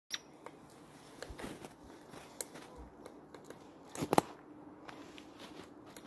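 Woodpecker pecking and chipping at tree bark: scattered, irregular taps, with a quick cluster of louder strikes about four seconds in.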